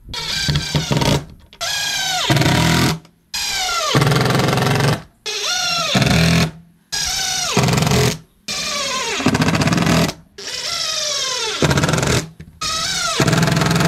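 Cordless DeWalt drill-driver run in about eight short bursts of a second or two each, driving screws into the wooden battens of a plank door. Its whine falls in pitch during each burst.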